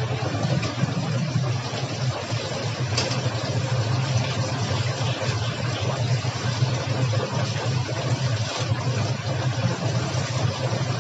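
Battered chicken frying in a commercial deep fryer, the oil sizzling steadily over a low, even mechanical hum, with a couple of faint clicks of metal tongs.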